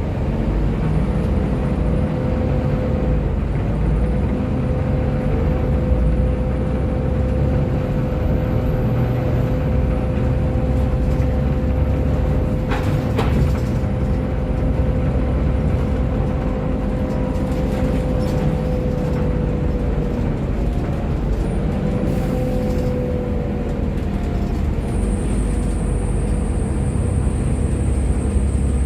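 Inside a Volvo B7TL Wright Eclipse Gemini double-decker bus under way: the six-cylinder diesel and drivetrain run with a steady low rumble and a constant whine over road noise. There is a single knock about halfway through, and a thin high-pitched tone starts near the end.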